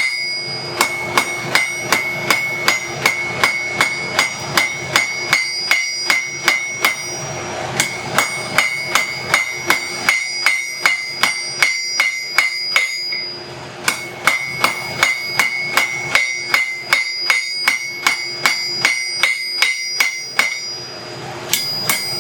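Blacksmith's straight-peen hammer striking hot steel on an anvil, about two to three blows a second, drawing the steel out. Each blow sets the anvil ringing with a clear tone, and the runs of blows are broken by a few brief pauses.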